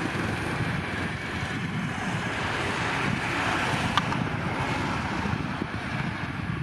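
Boeing 737-800's two CFM56 turbofan engines running at taxi power as the jet rolls along the runway, a steady rushing hiss and rumble. A single sharp click about four seconds in.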